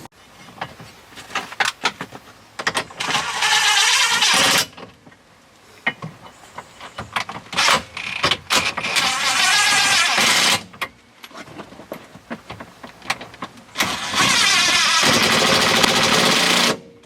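A power driver running in three bursts of two to three seconds each, driving the console bolts, with clicks and knocks of tool handling between the bursts.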